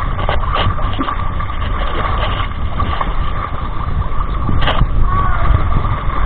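Heavy wind buffeting the microphone and water sloshing around the hull of a wooden outrigger pumpboat as it is pushed through the shallows, with a steady high-pitched hum underneath.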